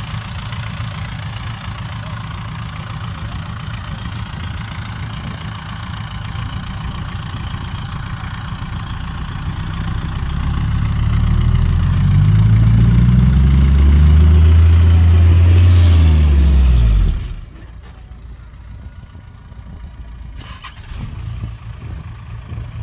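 Heavy diesel engine running steadily, then revving hard about halfway through, its pitch rising and falling. The loud revving cuts off suddenly, leaving a quieter engine idling.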